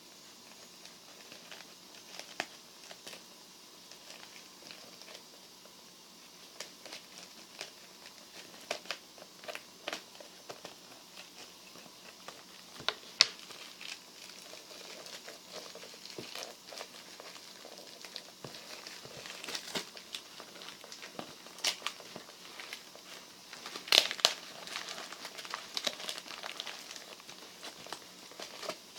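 Irregular small clicks, taps and crinkling noises at close range, as of small objects being handled, growing busier in the second half with a couple of sharper clicks.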